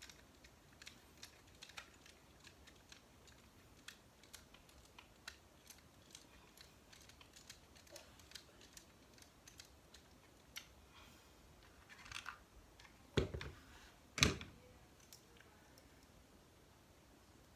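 Small plastic and metal RC crawler kit parts being handled and fitted by hand while the rear skid plate is assembled. There are many scattered light clicks and ticks, and two louder knocks about a second apart roughly three-quarters of the way through.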